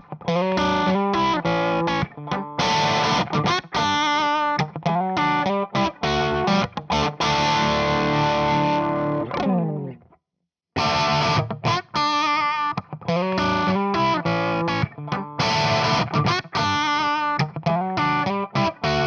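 Crunchy distorted electric guitar loop: a Fender Stratocaster into a Kemper profile of a Marshall JCM800, starting through a Two Notes impulse response of a Celestion G12M Greenback open-back 2x12 cab, playing choppy chords with short stops. About ten seconds in, the sound slides down in pitch and cuts out for under a second, then the loop starts again.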